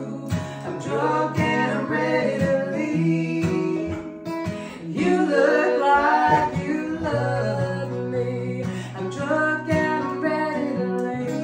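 A woman sings a country song over two strummed acoustic guitars.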